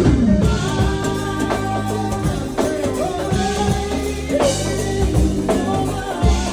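Live band playing jazzy music, with sustained bass notes and a drum kit keeping the beat.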